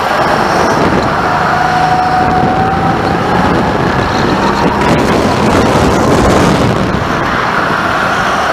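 Go-kart running at speed, heard from the driver's seat, with a steady loud noise under a thin motor note that climbs slowly in pitch for a few seconds and then fades out.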